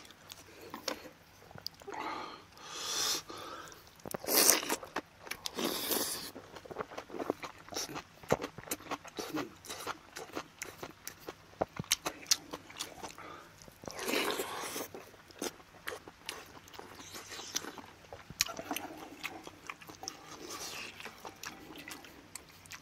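Close-miked eating: chewing and biting on aged kimchi and rice soup, with a steady run of small wet mouth clicks. Several louder, longer slurps come about 3, 4.5, 6 and 14 seconds in.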